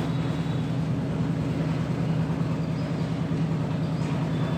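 Diesel engine of a concrete mixer running steadily during a concrete pour, a low even hum.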